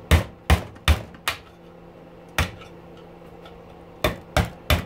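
Hammer blows on a metal punch driving a part off a small electric pump motor clamped in a steel bench vise: four sharp metallic strikes at an even pace, a single strike about two seconds in, then three more near the end.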